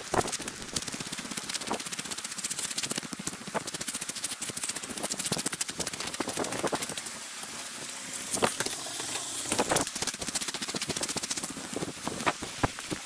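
Footsteps crunching over beach pebbles: a dense, rapid run of clicks and crackles, with a couple of louder knocks about eight and a half and ten seconds in.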